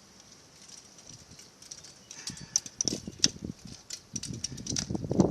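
Irregular clicks, taps and knocks of hands handling a motorcycle battery, its cables and a wrench, starting about two seconds in after a quiet stretch.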